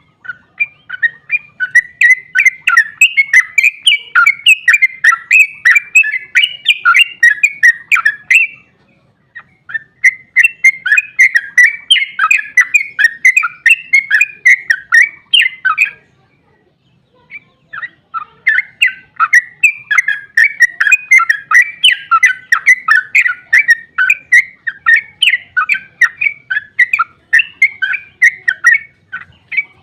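Yellow-vented bulbul (trucukan) singing a long, rapid run of chattering notes, in three extended bouts with short pauses between them.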